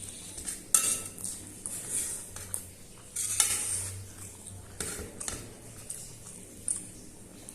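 Cutlery clinking and scraping against a dish while instant noodles are eaten, in scattered sharp clicks with a longer scrape about three seconds in.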